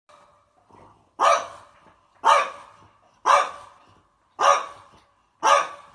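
A dog barking five times, about one bark a second, each bark sharp and quickly fading.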